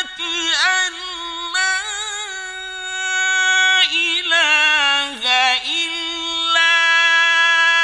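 A male Qur'an reciter's voice in mujawwad recitation, drawing out a long melodic phrase. It moves through several held high notes with wavering ornamental turns, dipping in pitch about five seconds in.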